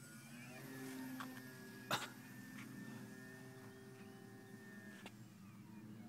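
Radio-controlled Piper Cub model plane's motor and propeller running as a steady pitched hum, rising slightly in pitch about half a second in and fading after about five seconds. A single sharp knock near two seconds in is the loudest sound.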